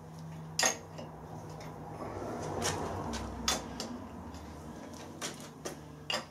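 Metal clinks and scraping of a spanner working the bolts on a milling machine's head, being loosened so the head can be tilted. There are half a dozen sharp clinks spread through the sound, a stretch of rubbing in the middle, and a steady low hum underneath.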